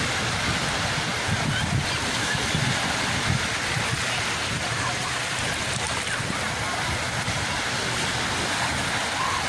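Sea waves washing onto the shore, a steady unbroken surf noise.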